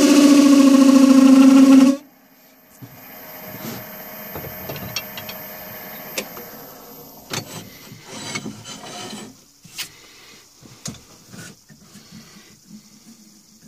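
A turning tool cutting a bowl blank spinning on a wood lathe, a loud steady pitched hum that stops abruptly about two seconds in as the tool comes off the wood. After that, quieter rubbing with scattered clicks and knocks as the tool rest and chuck are handled.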